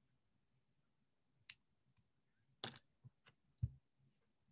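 Near silence with a few faint, scattered clicks, the loudest about three and a half seconds in.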